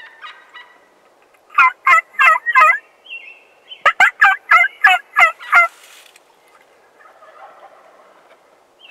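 Merriam's wild turkey gobblers gobbling twice: a short string of loud, rattling notes about a second and a half in, then a longer one about four seconds in.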